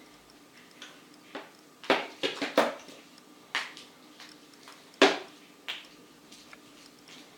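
Irregular sharp knocks and clinks of small hard objects: a single one, then a quick cluster of four around two seconds in, then three more spaced out, the loudest about five seconds in. A faint steady hum runs beneath them.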